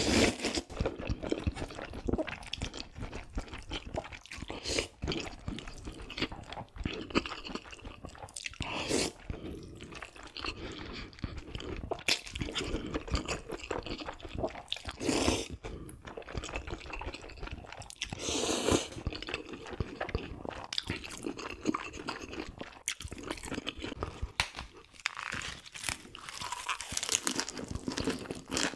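Close-miked eating of cold noodles: wet slurping and chewing with many small smacks and clicks, and several louder slurps along the way.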